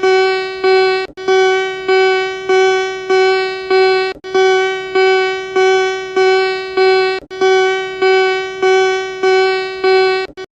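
Synthesized emergency alert tone: one steady pitched tone pulsing about every half second, each pulse struck sharply and fading, with a brief break after every fifth pulse. It cuts off suddenly near the end.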